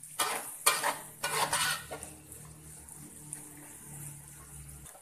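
Flat metal spatula scraping and clanking against a wok while stir-frying sliced ginger, galangal and lemongrass in oil, with sizzling. Several sharp scrapes come in the first two seconds, then it goes quieter.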